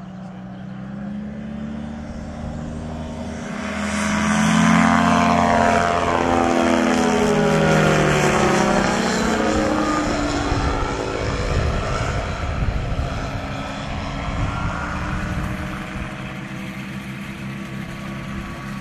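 Kolb ultralight aircraft's engine and propeller at power, growing louder as the plane approaches and passes overhead. About six seconds in, the pitch drops and the sound slowly fades as it flies away.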